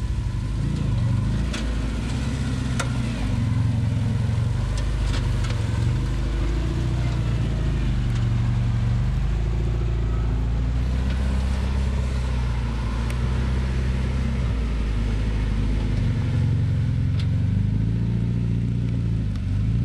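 Engine of a Fiat 500-bodied off-roader on a Suzuki Santana chassis running at low speed as it crawls over a dirt mound, its engine speed rising and falling a few times, with occasional short clicks and knocks.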